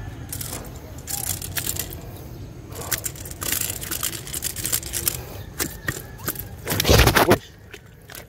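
Footsteps and scuffing on a muddy, stony riverbank: an irregular run of crunches and clicks, with a louder rushing noise about seven seconds in.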